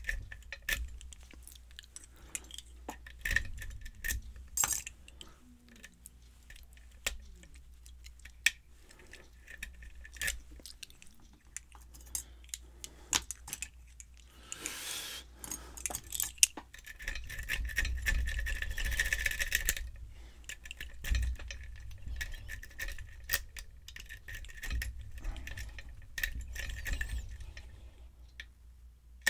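Lock pick and tension wrench working the pins of a brass Yale pin-tumbler cylinder held in a vise: scattered small metallic clicks and ticks as the pins are probed and set, with longer stretches of pick scraping along the pins about halfway through. The cylinder is fitted with serrated and spool pins.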